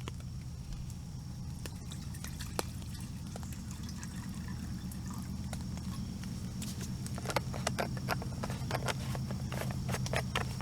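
Trangia alcohol burner running steadily under a pot of water, with scattered water drips and ticks that grow busier after about seven seconds.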